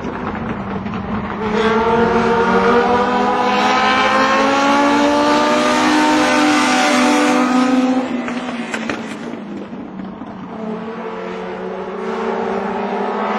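Two Legend race cars with Yamaha four-cylinder motorcycle engines passing at speed, their high-revving engine notes rising and falling in pitch together. The sound swells loud about one and a half seconds in and drops back after about eight seconds to engines running further off.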